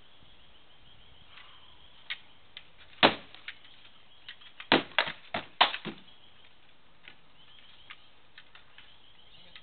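Sword blows landing on a shield and armour during armoured sparring: a quick run of sharp clacks and knocks between about two and six seconds in, the hardest around three and five seconds, then a few lighter taps.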